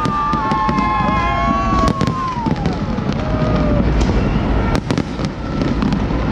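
Fireworks display going off: a steady rumble of launches and bursts with many sharp bangs and crackling pops. Long whistling tones sound over the first few seconds and fall away near the middle.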